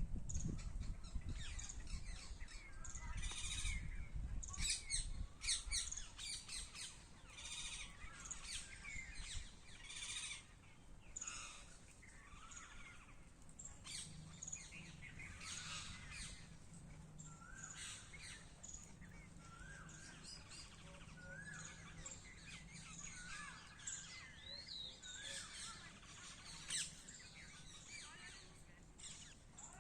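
Birds chirping and calling, with many short overlapping chirps and, later on, a run of short repeated whistled notes that rise and fall. A low rumble underlies the first several seconds.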